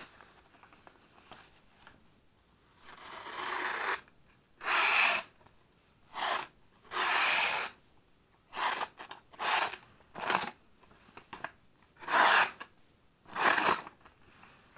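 A Victorinox Farmer Alox pocket-knife blade making a series of about nine short slicing cuts, each under a second long, as a sharpness test on the new knife.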